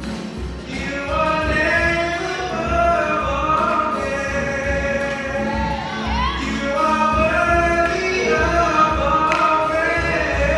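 Music with voices singing long, held notes in a choir-like blend over a steady low beat.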